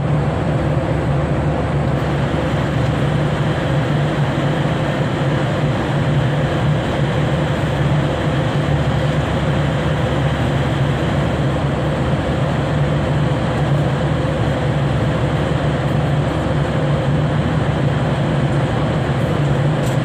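Airliner cabin noise in flight: a steady, even rushing with a constant low hum underneath.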